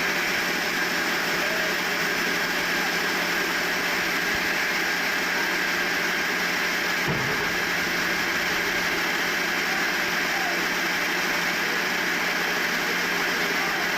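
Sawmill machinery running steadily: a constant mechanical noise with a low steady hum, and a brief low thump about halfway through.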